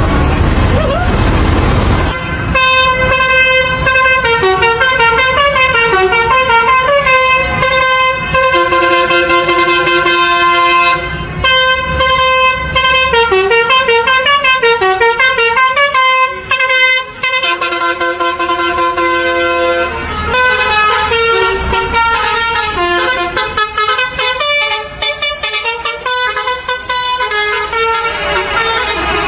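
Bus 'basuri' telolet horn, a multi-tone musical horn, playing a long melody of stepping, held notes, starting about two seconds in after a rush of noise.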